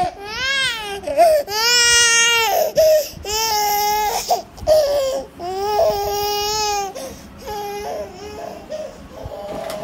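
A baby crying in a run of long, loud wails, each about a second long, easing into quieter, broken fussing about seven seconds in. It is fussy crying from a baby who wants to be picked up and cuddled.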